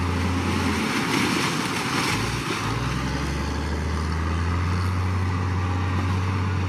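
Dump truck's diesel engine running steadily with a low hum while its bed is raised to tip out a load of soil, with a rushing noise over it.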